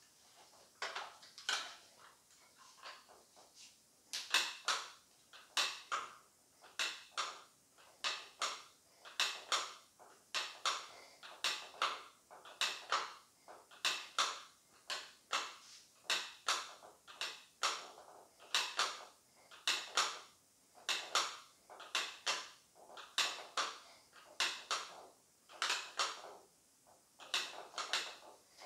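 Short noisy sounds repeating about once a second, often in pairs, in time with seated overhead reps of a 40 lb PowerBlock adjustable dumbbell.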